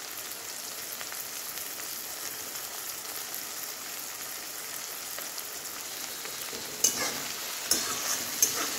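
Onions and tomatoes frying in oil in a metal kadhai, a steady sizzle. About seven seconds in, a flat spatula starts scraping and knocking against the pan as the mix is stirred.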